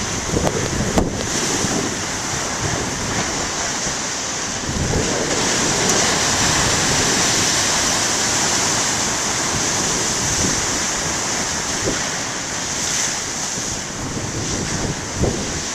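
Big ocean surf breaking and rushing, a steady roar that swells louder for several seconds in the middle.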